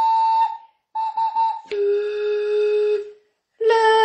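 Wordless melody of long held notes: a high note sounded twice, then a long note an octave lower, and the high note again near the end.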